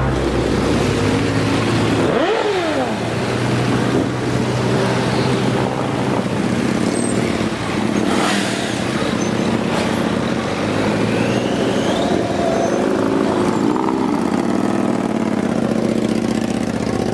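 Several sport motorcycles ride slowly past one after another, their engines running at low speed. About two seconds in, one engine revs up and falls back, and the pitch shifts again later as riders work the throttle.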